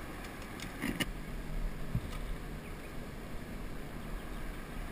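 Plastic sit-on-top kayak being manoeuvred with its paddle, water sloshing around the hull, with a couple of light knocks about one and two seconds in, over a steady hiss of wind on the microphone.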